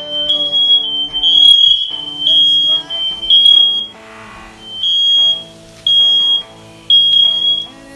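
Smoke alarm beeping a single high tone about once a second, each beep about half a second long, over background music. It is the alarm that keeps going off with nothing cooking, which its owner calls faulty.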